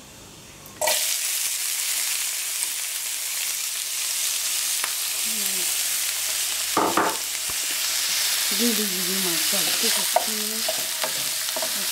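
Diced onions hitting a hot frying pan of melted fat start to sizzle suddenly about a second in. They keep sizzling steadily while a wooden spatula stirs them.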